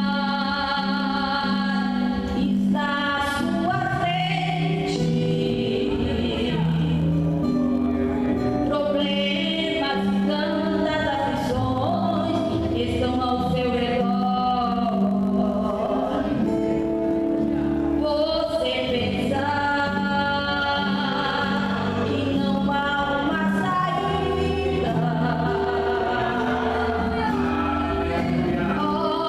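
Vocal group singing a gospel praise song in several voices over a musical backing with sustained low bass notes.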